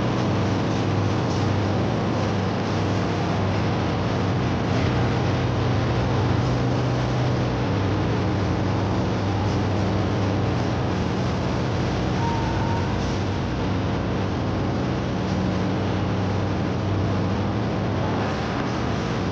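Diesel-electric locomotive engine running steadily, a continuous low rumble with a steady hum.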